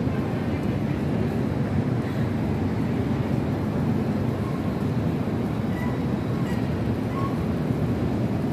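Steady low rumble of city street noise, with no distinct events standing out.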